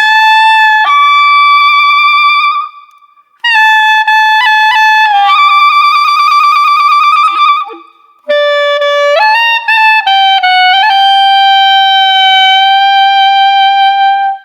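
A single wind instrument plays a short comedy-cue melody in three phrases with brief pauses between them. The notes are mostly long and held, with a wavering vibrato in the middle phrase.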